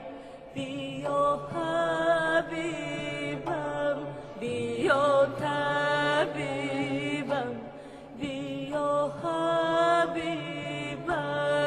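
A woman singing a slow, ornamented melody with a wavering vibrato, holding long notes and sliding between them, over a steady low drone.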